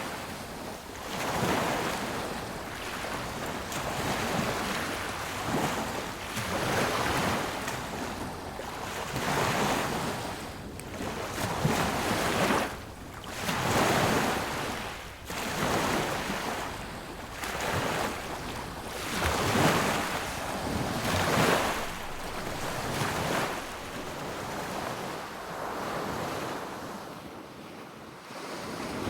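Sea waves breaking and washing up a beach in a steady series, the surf swelling and falling every couple of seconds, with some wind noise.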